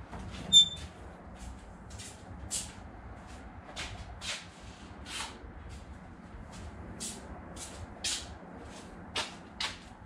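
Handling and moving-about sounds: a sharp metallic clink about half a second in, then a string of short scrapes and rustles, with no tool motor running.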